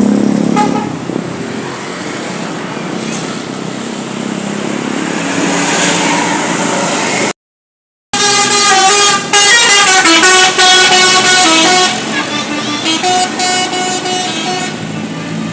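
A bus's telolet basuri musical horn playing a quick melody of stepping tones, loud, starting about halfway through after a brief cut to silence and tailing off into a few quieter notes. Before it there is a steady noisy background.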